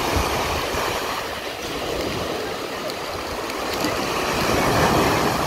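Sea waves breaking and washing up a sandy beach, a steady rush that swells louder near the end.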